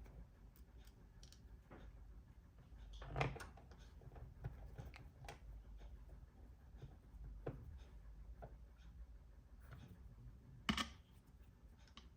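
Faint, scattered clicks and light taps of small hard objects, with two louder knocks, one about three seconds in and one near the end.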